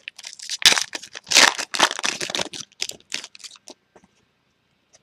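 A foil trading-card pack wrapper being torn open and crinkled in the hands: a quick run of crackling tears and crumples that stops about three and a half seconds in.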